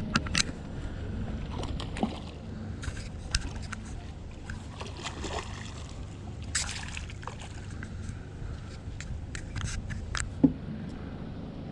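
Water sloshing and splashing against a steady low rumble, with scattered light taps and clicks and one sharper knock near the end.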